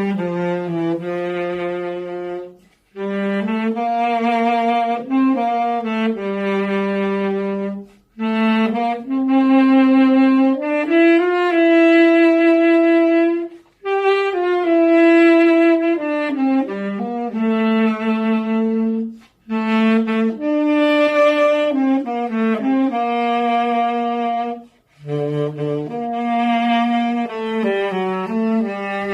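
Solo tenor saxophone playing a slow, sustained melody in phrases, with a brief pause for breath between each phrase, about every five seconds.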